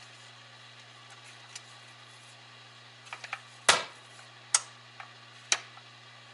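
A 1948 Zenith CobraMatic radio-phonograph with no music playing: a steady low mains hum and faint record hiss come through its speaker. A few sharp clicks break in, three of them louder and about a second apart, typical of the stylus riding the record's run-out groove once the song has ended.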